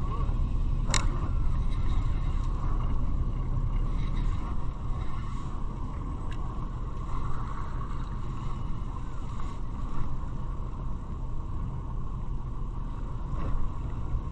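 Steady low rumble of a fishing boat's engine and wind at sea, with a constant hum in the middle register. A few sharp clicks come through as the fishing reel is handled.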